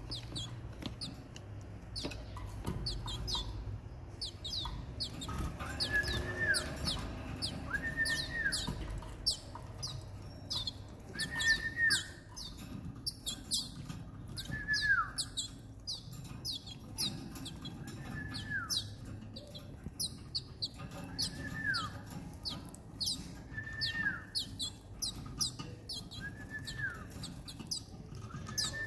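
Timbrado canary chicks begging for food with a dense run of quick, high, down-sweeping chirps. A lower arched call repeats about every two seconds from about six seconds in.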